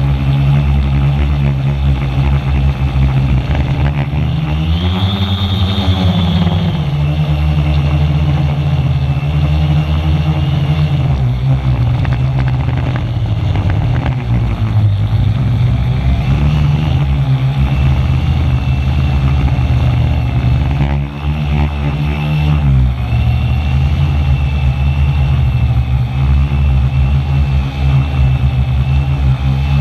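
A 450-size quadcopter's electric motors and propellers heard from a camera on its frame: a steady layered whine and buzz. It swells and rises in pitch about four seconds in, dips briefly about two-thirds of the way through, and begins to wind down at the very end.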